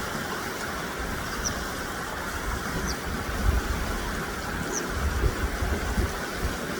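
Running water rushing steadily, with a low rumble underneath, while a bird gives a short, high, falling chirp every second or two.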